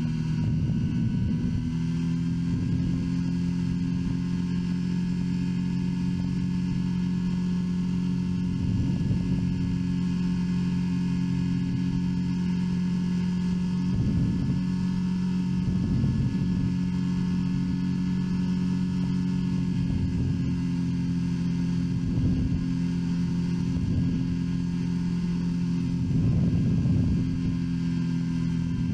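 Engine of an open-frame ultralight aircraft running at a steady cruise drone in flight, with rumbles of wind on the microphone every few seconds.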